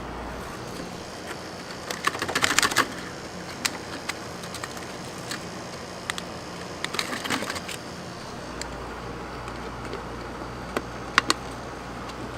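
Three bursts of sharp clicking and rattling from things being handled, over a steady low hum. The first burst is the loudest.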